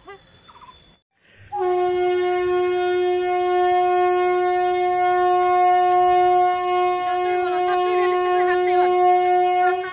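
Train horn blowing one long, steady note, starting about one and a half seconds in and held for about eight seconds.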